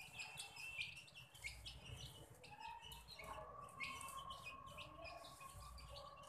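A brood of young chicks peeping continually, many short, high calls overlapping one another, faint.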